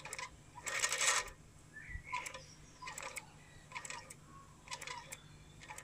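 Small hobby steam engine turning slowly and labouring, driving a shorted DC motor, so it is very hard to turn; its gearing gives sharp mechanical clicks about once a second, with a longer rattle about a second in.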